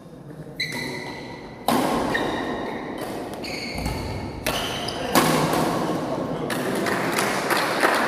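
Badminton rally on an indoor court: sharp racket hits on the shuttlecock, several seconds apart, with shoe squeaks and footfalls on the court floor, echoing in the hall.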